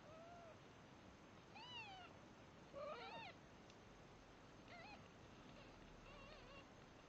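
Three-day-old Devon Rex kittens mewing faintly while they nurse and jostle for teats: about five short, high, rising-and-falling squeaks, the loudest a cluster of overlapping cries about three seconds in.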